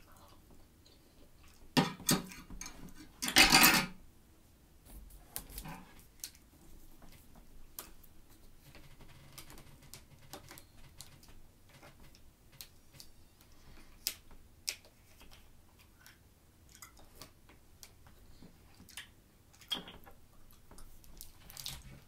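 Two loud clatters of a metal fork against a dish, about 2 and 3.5 seconds in. Then many faint clicks and crinkles as a plastic water bottle is handled and its cap worked open.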